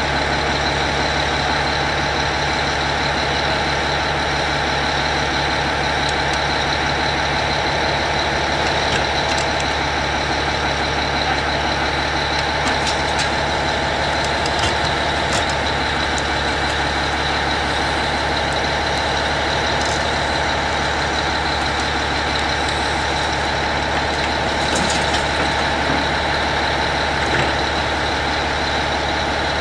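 Heavy machinery diesel engine running steadily under load, with a constant high whine over it and a few light clicks and knocks.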